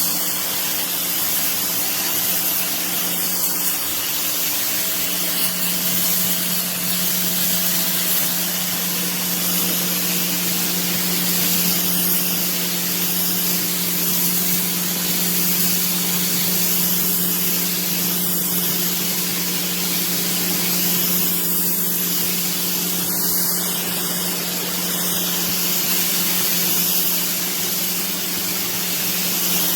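Bosch UniversalAquatak 135 electric pressure washer running and spraying water: a steady hiss of the jet over the steady hum of its motor and pump.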